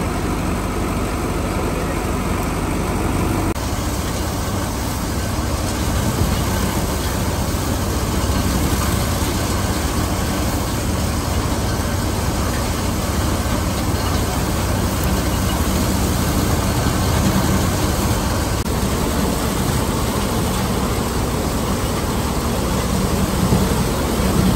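Tractor-driven threshing machine running under load, its tractor engine and spinning threshing drum making a steady, loud mechanical din as bundles of dry crop stalks are fed in.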